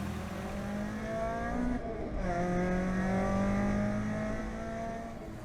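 Car engine accelerating under load: its note climbs, drops sharply at a gear change about two seconds in, then climbs again.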